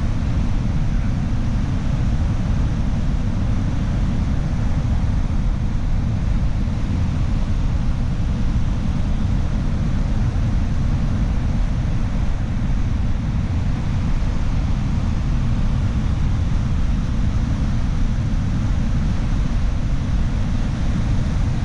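Vehicle driving along at a steady pace: a constant low rumble of engine and tyres, with some wind noise.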